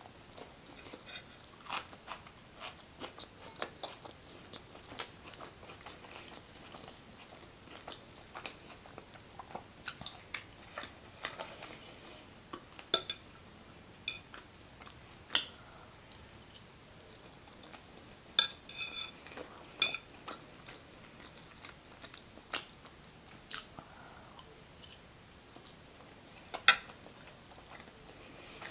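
Close-miked chewing and wet mouth sounds of a person eating, starting on a crunchy slice of raw onion and then forkfuls of rice. Scattered soft clicks and smacks run throughout, with a few sharper, louder clicks.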